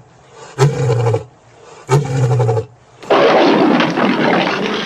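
Male lion roaring: two short, low grunting calls about a second apart, then a longer, rougher call from about three seconds in.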